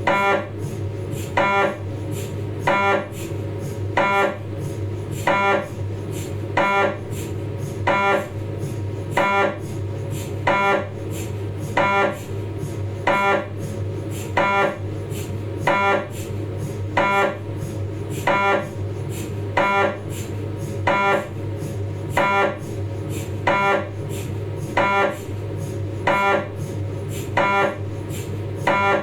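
Philips 1.5 T MRI scanner's gradient coils running a 3D T2-weighted sagittal spine sequence. A steady hum is broken by a short pitched buzz that repeats evenly about every 1.3 seconds.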